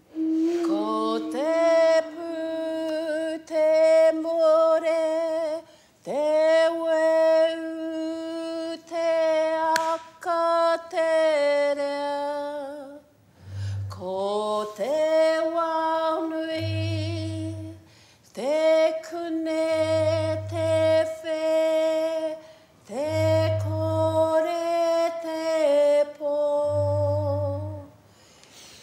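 A woman's voice singing long held notes in phrases of a few seconds, each scooping up into a steady, wavering note. From about halfway through, a low booming pulse sounds about every three seconds underneath the singing.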